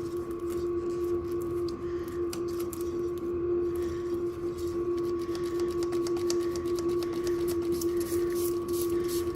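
Electric spray gun running with a steady hum and a fast rattling tick while spraying rust remover onto rusted metal parts.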